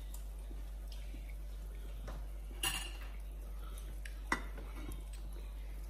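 Tableware clinking: a ringing clink of a utensil on a dish about two and a half seconds in and a sharp single tap about a second and a half later, over a steady low hum.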